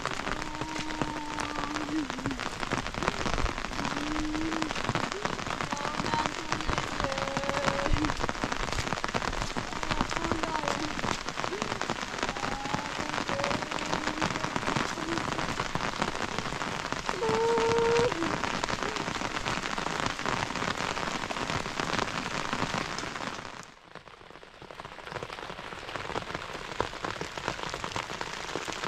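Steady rain falling on a road and wet ground, a dense hiss full of single drop hits. The rain sound drops away for a moment near the end, then returns.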